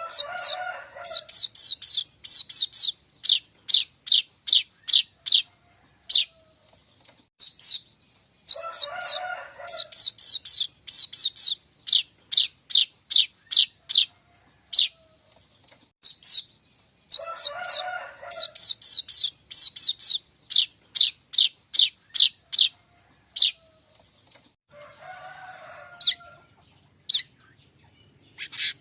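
Manyar kembang weaver song: a run of sharp, high chips at about three a second, broken every eight seconds or so by a buzzy wheeze lasting about a second. The whole phrase repeats over and over, as a lure recording does.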